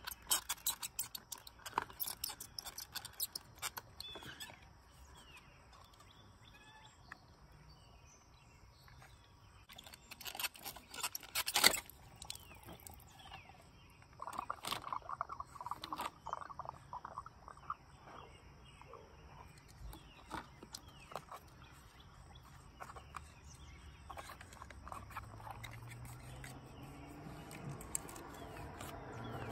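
Scattered clicks, snaps and scrapes of a 2002 Subaru Outback's plastic fuel pump hanger assembly being pried apart with a screwdriver, with one sharp snap about twelve seconds in. Birds chirp faintly in the background.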